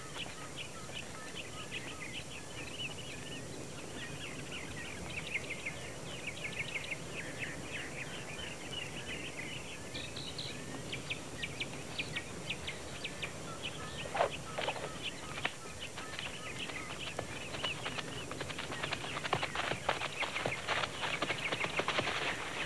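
Small birds chirping and twittering in quick repeated notes over a steady hiss, with one louder call falling in pitch partway through; the chirping grows denser and louder near the end.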